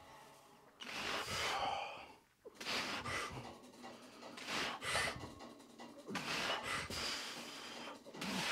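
A lifter breathing hard after a set of heavy barbell back squats, long noisy breaths in and out roughly once a second.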